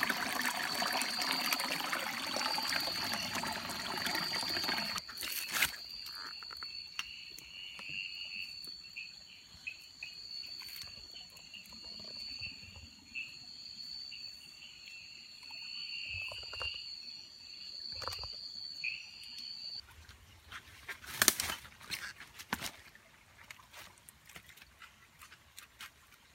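Stream water trickling over rocks under a steady, high-pitched trill of night insects. About five seconds in the water cuts out and the insect trill goes on, with a second, pulsing call beneath it, until both stop about twenty seconds in. After that come a few sharp knocks.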